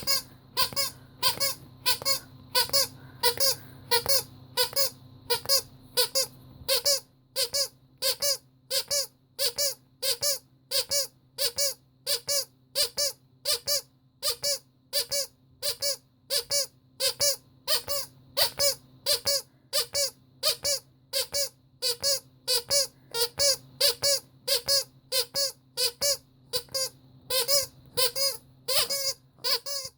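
Ledraplastic rubber Pinocchio squeaky toy being squeezed again and again, giving short squeaks at about two a second in a steady rhythm.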